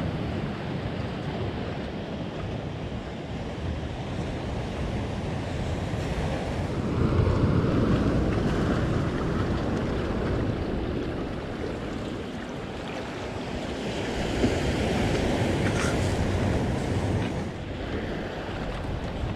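Ocean surf breaking and washing among boulders and cobbles on a rocky shore, swelling louder about a third of the way in and again later, with some wind on the microphone.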